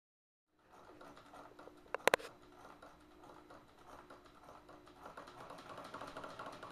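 Faint room noise with a quick cluster of three sharp clicks about two seconds in.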